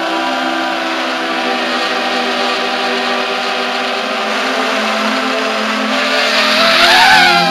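FPV quadcopter's T-Motor brushless motors and propellers whining in flight, several pitches sounding at once. The pitch climbs near the end as the quad banks into a turn.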